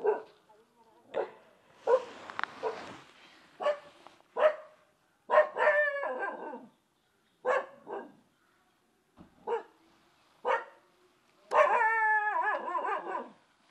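Dog barking at a person in a dozen or so short, irregular barks, a couple of them drawn out over a second or more.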